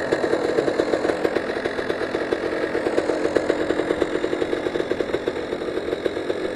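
Dirt bike engine idling steadily, with a rapid, even pulse.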